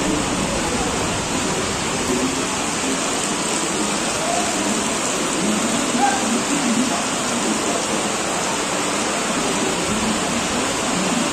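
Heavy rain pouring down on the station platform and tracks, a dense, even hiss of water that stays steady throughout.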